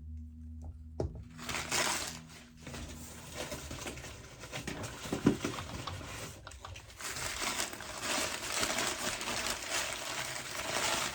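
Paper packing crinkling and rustling as a wrapped crystal is unwrapped by hand, in two long stretches with a short pause between, with a few light knocks of stone on a hard surface.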